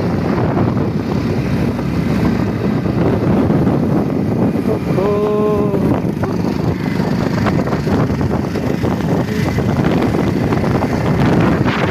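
Vehicle running on a road, with wind buffeting the microphone in a steady loud rumble. A single brief steady tone, like a horn, sounds about five seconds in.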